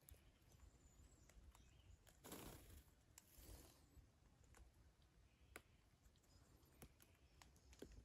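Near silence with a few faint scattered clicks and two brief soft rustles, about two and three and a half seconds in.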